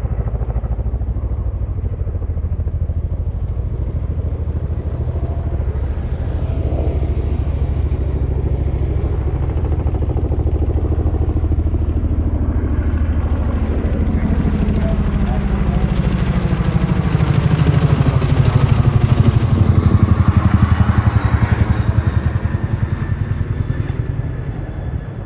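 Vehicle engine running steadily while driving, with road noise, growing louder for a few seconds about two-thirds of the way through.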